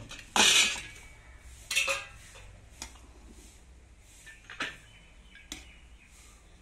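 Stainless steel pot and utensils clanking: a loud metal clatter about half a second in and another near two seconds, then lighter taps and scrapes as cooked rice is scooped out of the pot into a steel bowl.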